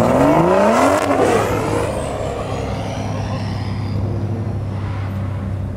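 Toyota GR Supra accelerating past, its engine note dropping in pitch as it goes by in the first second or so, followed by a thin high whistle that falls away. Then a steady low engine drone from the cars following.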